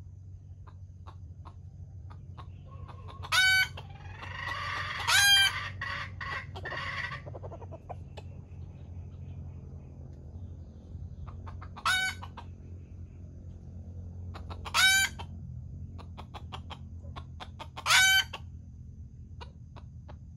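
A red junglefowl rooster used as trap bait, crowing five short crows a few seconds apart. A run of clucking and chatter comes in around the first two crows.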